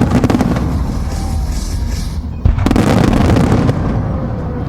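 Fireworks display: shells bursting in deep rumbling booms, with crackling from the bursts and a sudden loud boom about two and a half seconds in.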